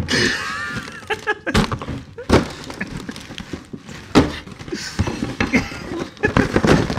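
Cardboard Easter egg boxes being bashed and torn open without hands: a rapid, irregular run of knocks, thuds and scraping.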